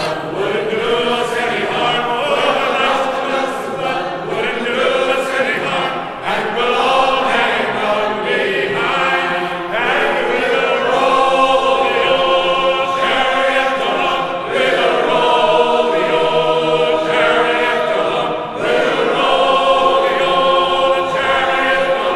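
A group of voices singing a sea shanty in chorus, laid over as background music.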